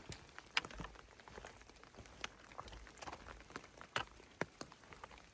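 Light rain patter: scattered drops falling at irregular intervals as faint, sharp ticks.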